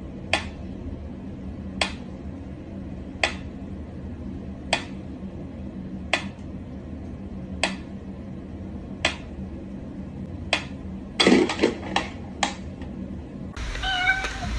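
Mechanical pyramid metronome ticking slowly, one sharp tick about every second and a half. A quick run of louder knocks and clicks comes near the end.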